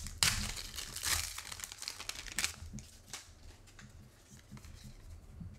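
A Pokémon card booster pack's foil wrapper being torn open and crinkled by hand. The loudest rips come in the first second and a half, with another about two and a half seconds in, then softer crinkling as the cards are slid out.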